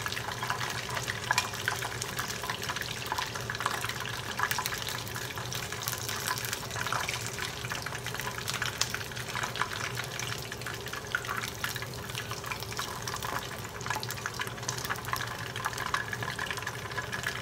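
Starch-coated chicken wings frying in hot vegetable oil in a pan: a steady crackling sizzle of many tiny pops, with a low steady hum underneath. This is the first fry of double-fried Korean chicken, the pieces being lifted out with tongs.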